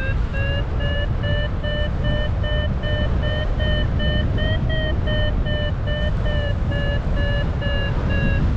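Paragliding variometer beeping steadily at about two beeps a second, its pitch rising slightly in the middle and easing down near the end; climb beeps that signal the glider is rising in lift. Wind rushing over the microphone underneath.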